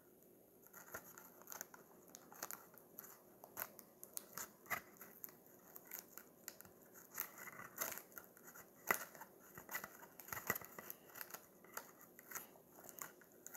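Scissors snipping and being worked by hand: a run of faint, irregular sharp clicks, one or two a second, starting about a second in.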